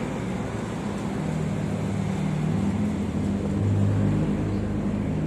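A motor vehicle engine running nearby, a low hum of shifting pitch that grows louder toward about four seconds in and then eases off.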